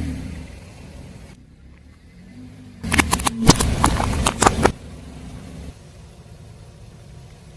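A car's engine runs low as a tyre rolls over and crushes brittle objects, giving a burst of sharp cracks and crunches about three seconds in that lasts nearly two seconds.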